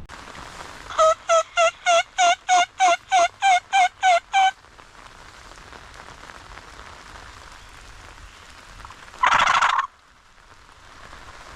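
Series of about eleven turkey yelps, evenly spaced at roughly three a second, over a steady hiss of rain. Near the end comes one loud noisy burst lasting under a second.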